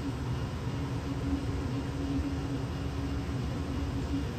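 Steady low mechanical hum of room machinery with one constant tone running through it.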